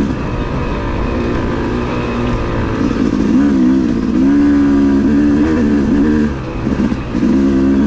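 Yamaha YZ250 two-stroke dirt bike engine running under way, its pitch rising and falling with the throttle; the throttle is backed off briefly about six seconds in, then opened again.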